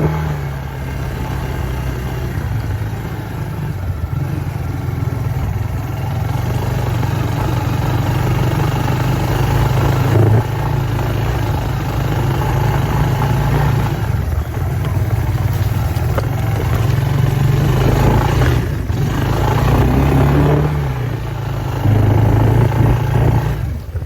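Small off-road vehicle engine running continuously, its pitch rising and falling a few times as the throttle is opened and eased off, and louder near the end.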